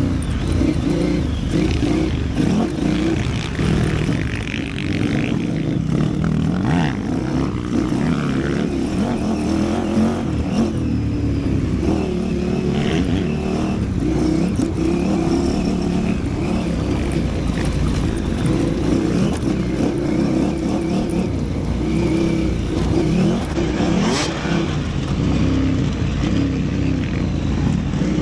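KTM 950 Super Enduro's V-twin engine running hard off-road, its revs rising and falling continually as the throttle opens and closes. A single sharp knock comes near the end.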